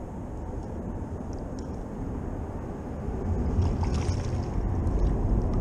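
Low, steady rumble of wind buffeting the microphone, growing louder about three seconds in, with a few faint clicks near the end.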